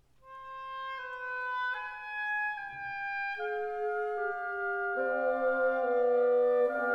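Orchestral background music. A single woodwind melody line enters just after the start, and lower instruments join in about three and a half and five seconds in, filling out into chords.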